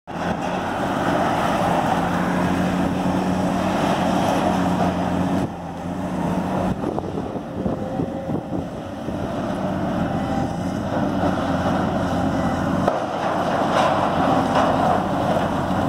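Steady engine and road noise from passing vehicles, swelling twice as traffic goes by.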